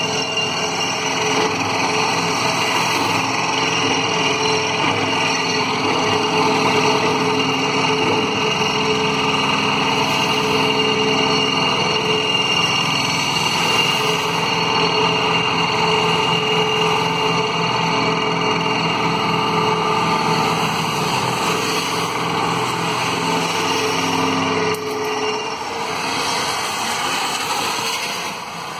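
Vibratory pile hammer hung from a crawler crane, running on a steel pile with a steady, loud, buzzing drone, then cutting off suddenly about 25 seconds in.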